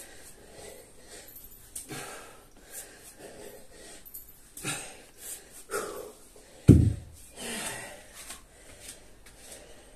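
A man breathing hard and exhaling in short puffs during an exercise set, with one loud, low thud about seven seconds in.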